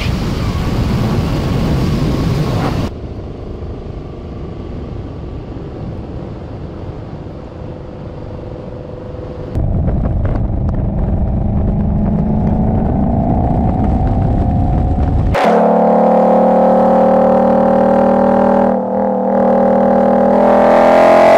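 2020 Ford Mustang Shelby GT500's 5.2-litre supercharged V8 and exhaust, driven hard on a track. The sound changes abruptly a few times, growing louder and more tonal as the engine note climbs steadily in pitch under acceleration. Near the end it dips briefly, as at a quick upshift of the dual-clutch gearbox, then climbs again.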